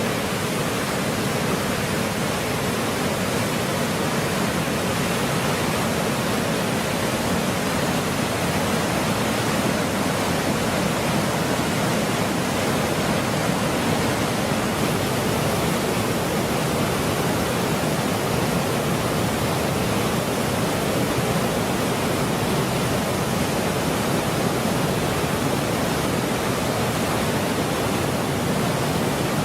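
Waterfall: a steady rushing of falling water, even and unbroken.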